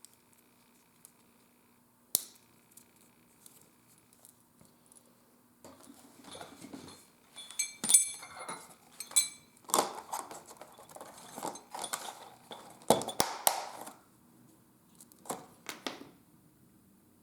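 Leatherworking tools and metal hardware handled on a workbench. There is a single sharp click about two seconds in, then several seconds of clinking with ringing metal taps, knocks and rustling, and a few last knocks before it goes quiet.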